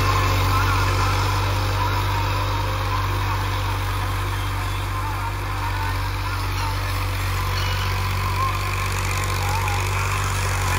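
Farm tractor's diesel engine running steadily under load as it pulls a tine cultivator across tilled soil, a constant low drone that grows slightly fainter as the tractor moves away.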